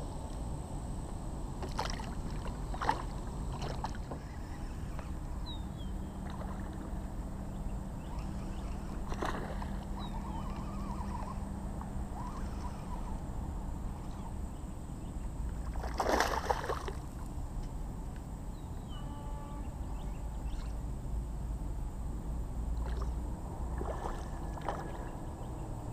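Water sloshing and lapping around a small fishing boat, with scattered knocks and splashes and a low steady hum for several seconds in the first half. Near the end a hooked largemouth bass splashes at the surface.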